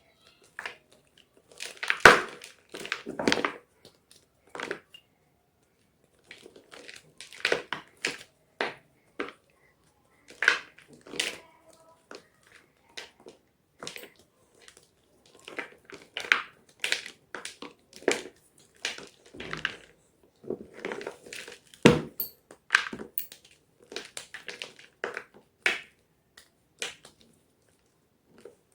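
Blocks of gym chalk being crushed, a run of short, sharp crunches at an uneven pace with brief pauses between them.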